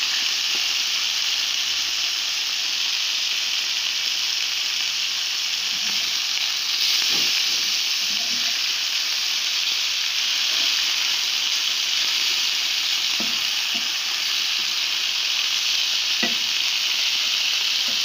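Meat and merguez sausages frying in hot fat on a large flat pan: a steady sizzling hiss, with a few faint knocks here and there.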